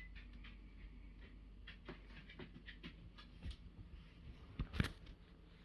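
Faint handling noises from an acoustic guitar being wiped down and cleaned: scattered light taps and rubbing, with one sharper knock near the end.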